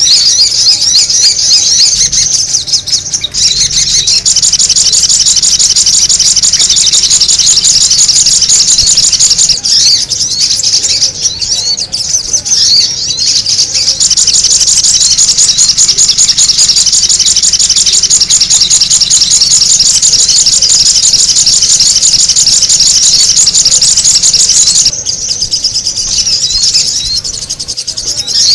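Sogon bird lure call: loud, rapid, high-pitched chattering notes packed into an almost continuous run, with a few brief breaks and a softer patch near the end.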